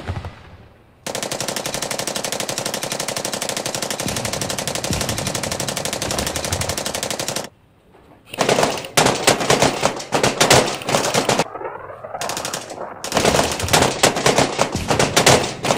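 Airsoft rifle firing on full auto: one long, unbroken burst of rapid, even clicks, then after a short gap several shorter, louder bursts with brief pauses between them.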